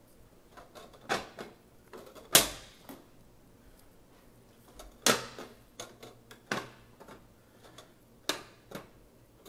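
Plantation shutters being closed by hand: a series of sharp clacks as the louvers and panels knock shut, the loudest about two and a half seconds in.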